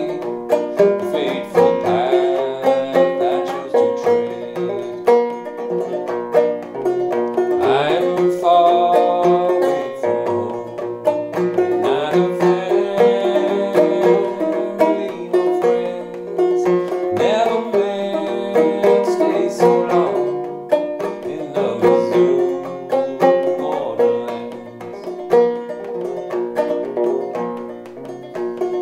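1890 J.B. Schall-built H.C. Nelson banjo played clawhammer style in double B-flat tuning (double C lowered a whole step), a steady run of struck, ringing notes with a couple of notes slid upward.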